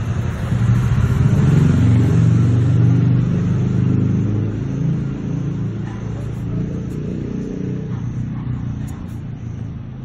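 A motor vehicle's engine rumbling, growing louder over the first few seconds and then slowly fading.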